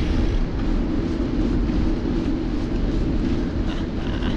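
Steady rushing wind noise over the microphone of a camera carried by a moving rider, heavy in the low end, with no distinct events.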